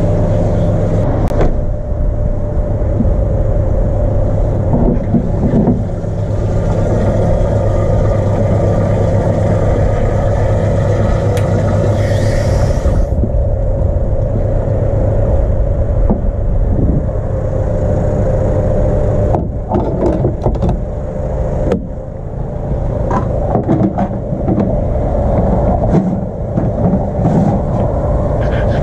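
A steady low hum while a hose fills a window cleaner's van-mounted water tank, with a short hiss about twelve seconds in. Later come clatters and knocks as the metal hose coupling is handled at the tank.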